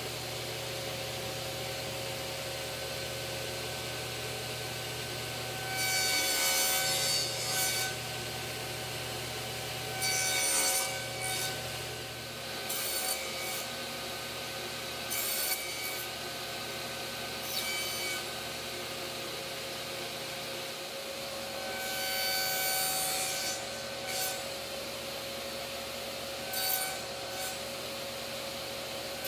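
Table saw running steadily while the ends of door rails are pushed over the blade on a sled, cutting tenons. Each pass through the wood brings a louder cutting noise; the longest come about six seconds in and again a little past twenty seconds, with shorter passes in between.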